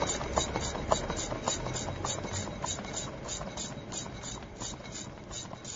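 Car wheel and tyre spinning freely, a rhythmic swish with light ticks about four times a second, slowly fading.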